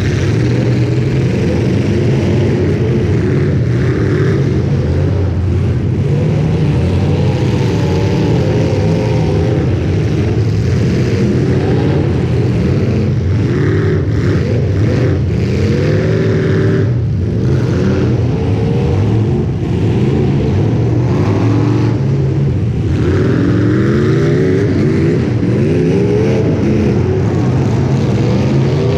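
Loud demolition derby car engines, a steady low drone with engines repeatedly revving up and down over it.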